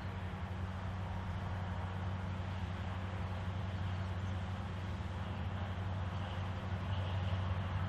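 Diesel locomotive engine of a Railpower genset switcher running steadily with a low, even hum.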